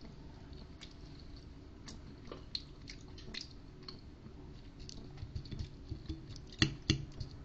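Quiet eating sounds at a plate: scattered light clicks and taps of a fork on the plate, with two sharper clicks near the end.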